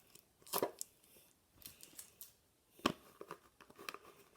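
Packing tape on a cardboard box being picked at and pulled by hand: scattered crinkling and scraping, with a sharp click a little under three seconds in.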